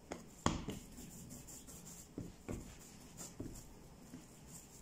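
Hands kneading a chilled ball of almond, coconut and amaranth flour dough on a countertop: faint rubbing broken by a few soft, dull thumps as the dough is pressed down, the strongest about half a second in.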